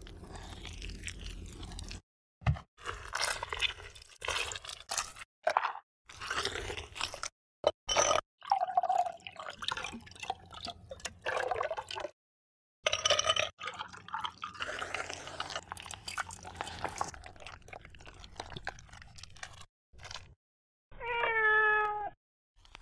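Edited run of close-up food-preparation sounds: a kiwi being peeled, crunchy handling and liquid pouring and dripping into a cup, cut off abruptly between clips. Near the end comes a short cat meow.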